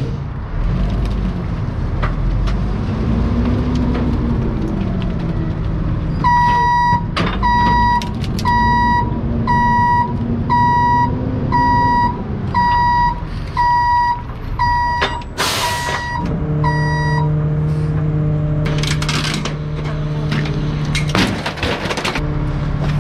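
Diesel refuse truck running with its engine speed rising and falling, while its reverse alarm beeps steadily at about one beep every three-quarters of a second for about ten seconds, the signal that the truck is backing up. A sharp air hiss comes just as the beeping ends. The engine then settles to a steady hum, with a few more short hisses and knocks.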